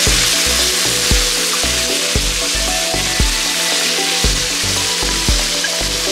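Masala ingredients sizzling as they sauté in hot oil in a pan, a steady hiss of frying. Background music with a steady beat plays under it.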